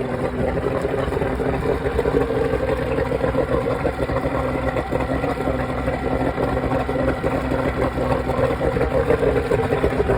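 Mariner 150 horsepower V6 two-stroke outboard engine running steadily above idle while warming up after starting.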